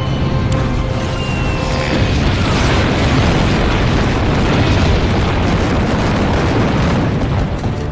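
Aerial bombs exploding one after another, blending into a continuous heavy rumble of blasts, with dramatic film music underneath. The rumble eases off near the end.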